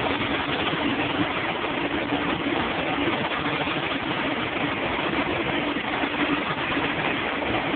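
Steady rush of air with a low hum underneath, from paint booth and spray equipment while clear coat is being sprayed.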